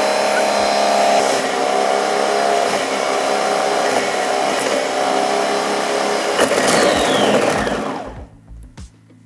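Froothie Optimum ThermoCook Pro M 2.0 thermocooker blending frozen berries into a smoothie at top speed (10), loud and steady. About seven seconds in the motor winds down, falling in pitch, and stops, leaving a few faint knocks.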